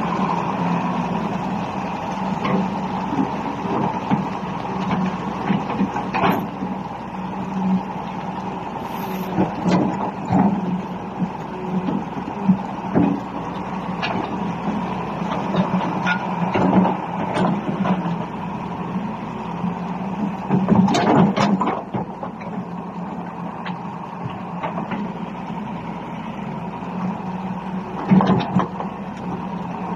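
Volvo EC290BLC crawler excavator's diesel engine running steadily, with scattered short knocks and clanks from the machine.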